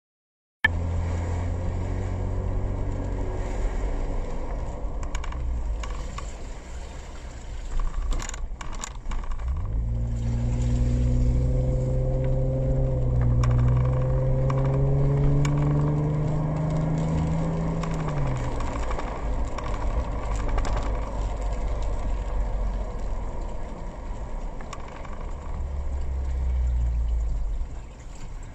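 Car driving along a wet road, heard from inside the cabin: steady engine and tyre noise, with the engine note climbing slowly for several seconds in the middle as the car accelerates, then dropping away.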